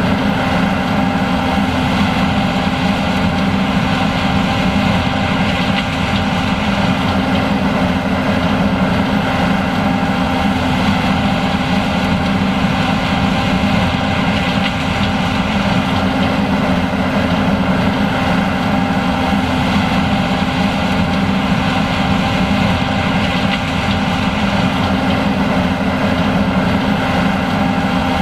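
John Deere S780 combine running steadily while harvesting corn: a constant heavy engine drone with several steady whining tones over it, unchanging throughout.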